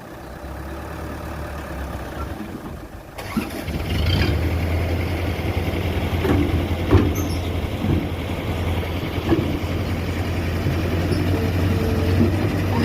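Mitsubishi BD2G bulldozer's diesel engine running: faint at first, then from about three seconds in loud and steady, with several sharp metallic clanks.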